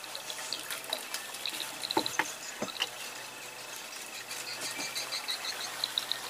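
Quiet flowing-river ambience with water lapping at a small boat, and a few light knocks about two to three seconds in as a fishing rod is handled. Faint high chirps sound throughout.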